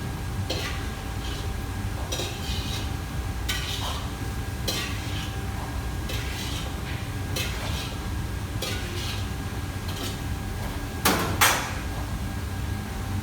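Kitchen work: scattered clinks and knocks of utensils against pots and dishes, about one a second, over a steady low hum. Two louder sharp knocks come close together near the end.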